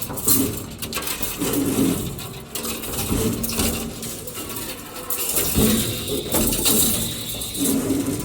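CNC rebar stirrup bending machine running through its cycle: a repeating motor whir with metallic clinks and clanks about once a second as the steel bar is fed and bent.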